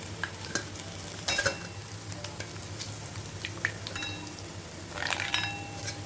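Egg 65 pieces sizzling in hot oil, with metal clinks of a spoon against the pan as they are lifted out: a couple about a second and a half in and a cluster with a short ring around five seconds in.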